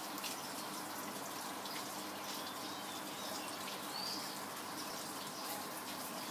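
Steady trickling and dripping of water around a small goldfish tank, with faint scattered ticks. A single brief high chirp sounds about four seconds in.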